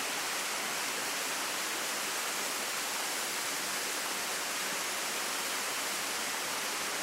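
Waterfall pouring into a pool in a rocky gorge: a steady, unbroken rush of falling water.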